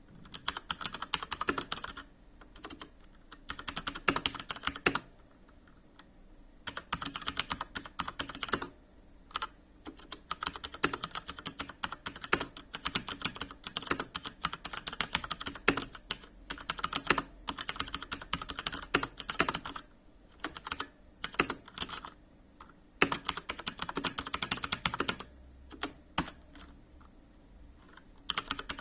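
HP Omen Encoder mechanical keyboard with Cherry MX Brown switches being typed on: bursts of rapid keystrokes lasting a second or two, separated by short pauses, with a few single keys struck harder than the rest.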